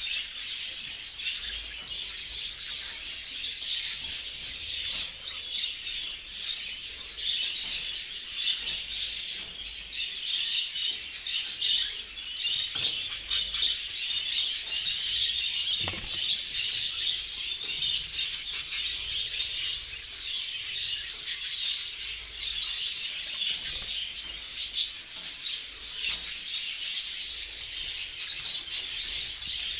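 A flock of budgerigars chattering and chirping all at once, without a break, with one brief knock about halfway through.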